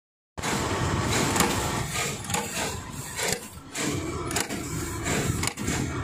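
Electric terminal crimping press running, its motor-driven ram striking sharply about once a second as ring terminals are crimped onto wire ends, over steady machine noise.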